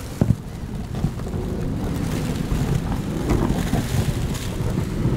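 Thin river ice crunching and knocking against a PVC boat as it is broken through, with a few sharp knocks, one loud one shortly after the start, over a low rumble of wind on the microphone.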